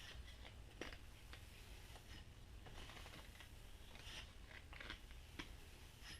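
Hatchet blade being stropped on a leather straight-razor strop: faint, irregular soft swipes with light ticks scattered through.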